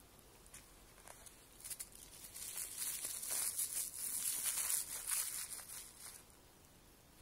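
A thin plastic dog-waste bag crinkling as it is handled in a jeans pocket. The crinkling starts about two seconds in and stops about a second before the end.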